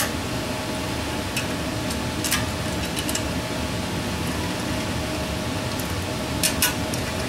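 Steady fan-like hum, with a few light clicks of metal parts and tools being handled on the engine.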